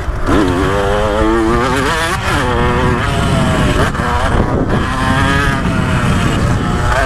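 2015 KTM 125 SX two-stroke dirt bike engine at speed, its pitch climbing and dropping back several times as the throttle is worked. Wind rumble on the helmet microphone runs underneath.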